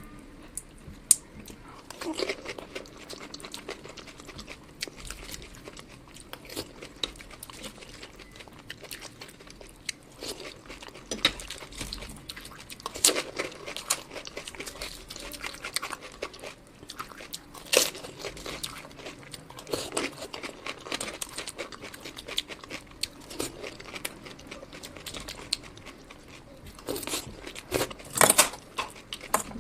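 Close-miked eating of junk food: bites and chewing, with louder crunchy bites every few seconds among smaller wet clicks.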